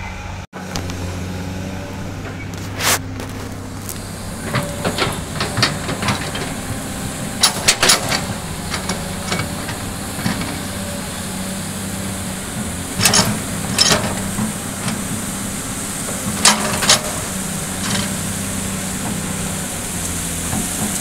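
Sany SY215C hydraulic excavator's diesel engine running steadily under load, with sharp clanks and scrapes every few seconds as the bucket works the soil.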